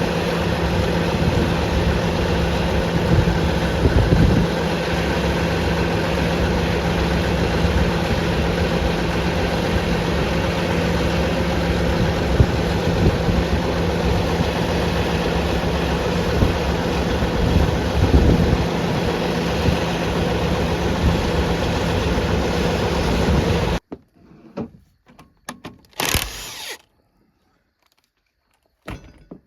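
Farm harvest machinery running steadily with its engine drone. About 24 seconds in it stops suddenly, and a few faint clicks and knocks follow.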